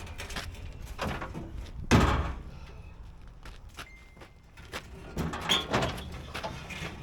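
A series of knocks and clanks, with the loudest thud about two seconds in and another run of knocks near the end.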